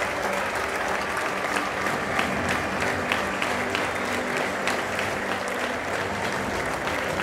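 Large football-stadium crowd applauding the teams as they come out, a dense steady mass of clapping with single claps standing out.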